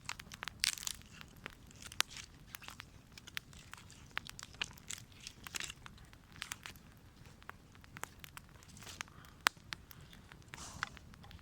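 Wood campfire burning, crackling with irregular sharp pops and snaps and a few longer hissing crackles.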